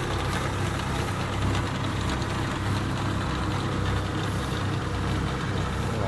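Kubota PRO688Q combine harvester's diesel engine running steadily at a constant level, with a dense mechanical rumble.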